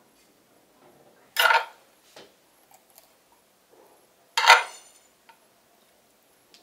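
A metal spoon knocks against a pan twice, about three seconds apart, each knock ringing briefly, with a few faint taps between as filling is spooned into a pepper.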